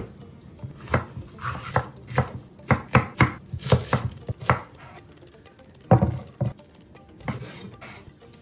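Kitchen knife chopping vegetables on a cutting board: about a dozen sharp, uneven strikes, closely spaced for the first few seconds, a short pause, then a few more.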